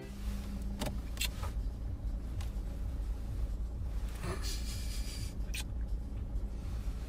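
Steady low rumble inside a car cabin, with a few faint clicks and a brief rustle about four seconds in.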